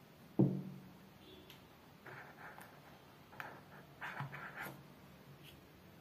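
A single thump on a table, then light rustling and clicking of cardboard packaging and a plastic-coated cable as a coiled USB cable is pulled out of a phone box's paper tray.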